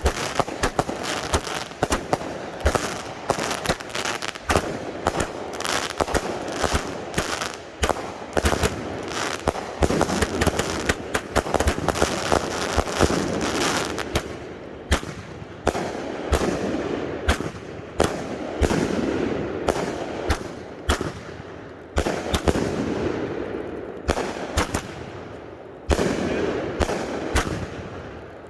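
Consumer firework cakes firing in quick succession: a dense, unbroken run of sharp launch and burst reports over continuous crackling.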